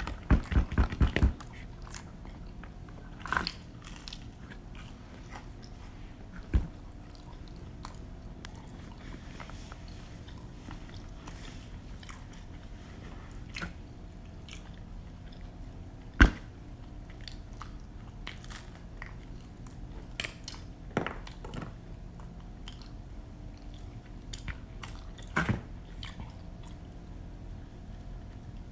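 Close-up eating sounds of pizza: chewing and biting into the crust. A quick run of crunchy clicks comes in the first second, then scattered sharp crunches, the loudest about 16 seconds in, over a steady low hum.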